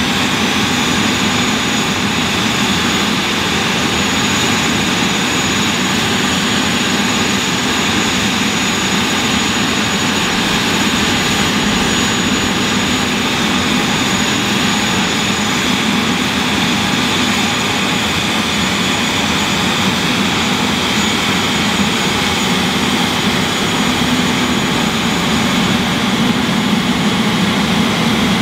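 Dassault Falcon 7X's Pratt & Whitney PW307A turbofans running steadily at low power on the ground: an even jet whine with a thin high tone over it, as the business jet starts to taxi.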